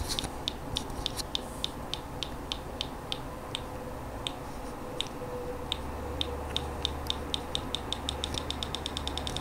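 Small speaker driven by a reverse joule thief oscillator (a 2N3055 transistor and a coil wound on a neon sign transformer core, running off 3 volts) ticking once per oscillation, about three to four clicks a second. The ticking speeds up near the end.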